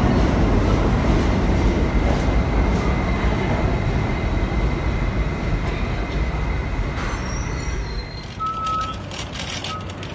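New York City subway train running along a station platform: a steady rumble of wheels on rails with a faint high whine, slowly getting quieter. About eight seconds in it gives way to thinner street sound with two short beeps.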